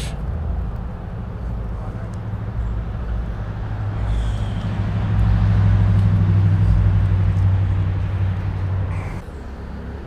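Low, steady engine drone, as from a large motor vehicle nearby. It swells about halfway through and drops off sharply about a second before the end.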